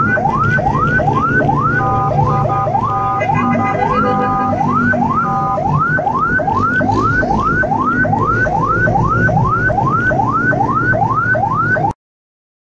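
Ambulance electronic siren heard from inside the cab, on a fast yelp of rising sweeps, nearly three a second, broken by short stretches of a steady tone, over the low hum of the vehicle. It cuts off abruptly near the end.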